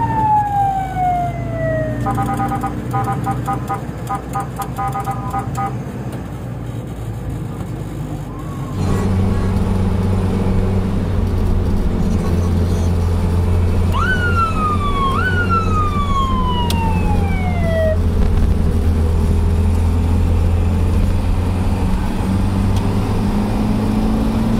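Electronic sirens of Mitsubishi L300 ambulances heard from inside a van's cab. First a descending wail, then a few seconds of rapid pulsing tones at several pitches. From about nine seconds in, a steady engine and road drone runs underneath, with two siren sweeps that jump up and glide down around the middle.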